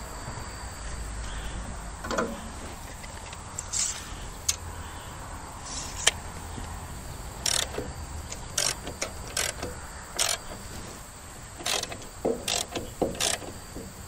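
Irregular sharp metallic clacks and clicks from a hand-worked lifting mechanism on the sawmill bed, raising the end of a log about a quarter of an inch to level its pith.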